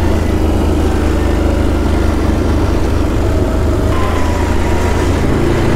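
ATV engine running steadily, an even low drone with no revving.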